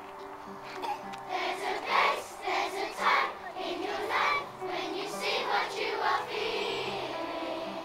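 A large group of children singing together as a choir, loud and ragged in places, with an upright piano accompanying underneath.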